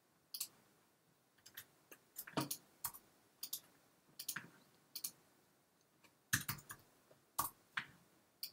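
Computer mouse clicking, with scattered, irregular clicks, some in quick pairs, as menus and a dialog are worked.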